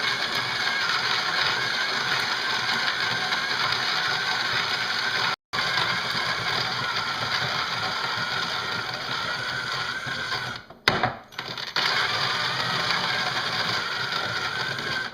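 Cordless drill turning a Hario MSS-1B Mini Mill Slim's burr to grind coffee beans. It gives a steady motor whine over the grinding noise, kept at a moderate speed to spare the burrs. It cuts out for a moment about five seconds in, stops and starts a few times around eleven seconds, and stops abruptly at the end.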